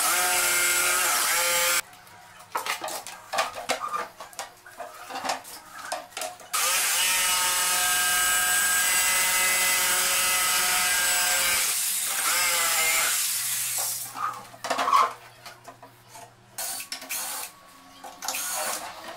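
Corded jigsaw cutting through a laminated cabinet bottom panel: a short run of cutting, then a longer steady run with a whining motor that stops about 12 seconds in. Scattered knocks and handling sounds fall between and after the cuts.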